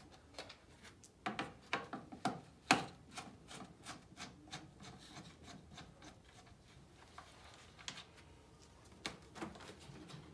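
A screwdriver turning plastic screw-type retainers on a 2019 Honda Pilot's air intake cover: faint, irregular plastic clicks and scrapes, busiest in the first few seconds and again near the end.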